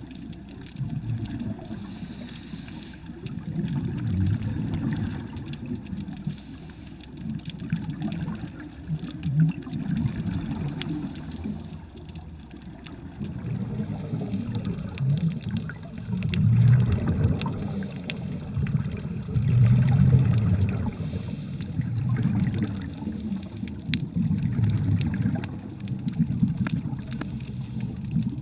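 Underwater sound of scuba regulator breathing: exhaled bubbles rumbling and gurgling in swells every few seconds, with faint scattered clicks.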